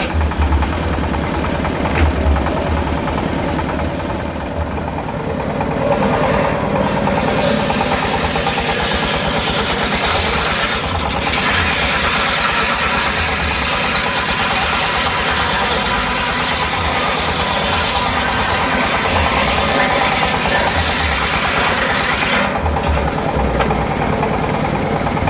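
Engine of a circular-saw sawmill running steadily. A brighter, noisier sound joins it from about six seconds in and drops away again about three seconds before the end.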